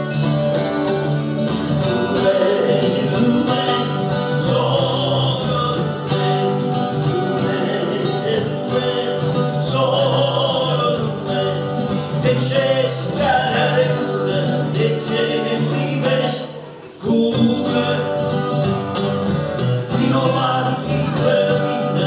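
Acoustic guitar playing an instrumental passage between sung verses, with a short drop in loudness about seventeen seconds in before the playing picks up again.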